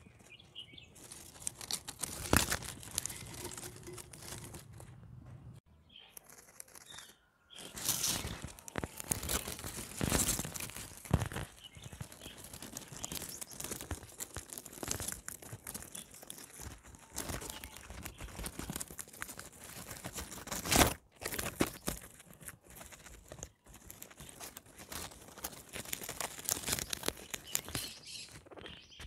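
Guinea pigs eating, chewing and tearing at plants: an irregular run of crisp crunching and rustling with occasional louder snaps, pausing briefly about six seconds in.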